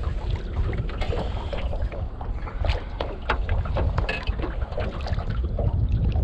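Wind buffeting the microphone as a steady low rumble, with scattered short clicks and knocks.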